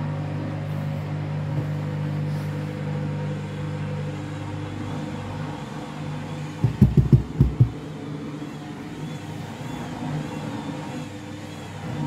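Candy front-loading washing machine's drum motor humming steadily as the drum turns with a tangled, unbalanced load, easing off about five seconds in. About seven seconds in comes a quick run of about six heavy thuds as the lopsided load knocks the drum.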